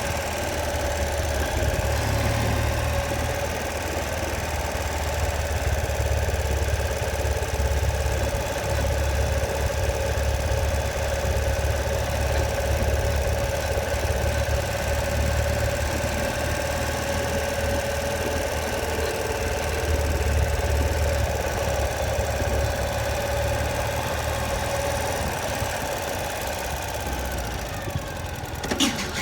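Ural Patrol sidecar motorcycle's air-cooled boxer twin running at idle, with a steady whine over the low engine note. This is the abnormal noise the bike makes when the clutch is worked, a sign of a clutch problem. A sharp click comes near the end, and the sound drops after it.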